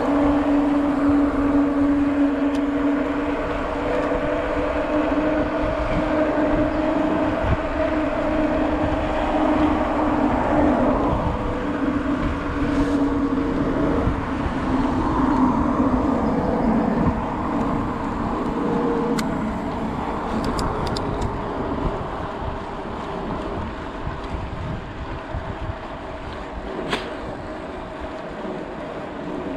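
Wind rushing over a chest-mounted camera's microphone with tyre noise while an electric bike rides along a road, under a steady hum. The hum fades in the later part, and a few light ticks come near the end.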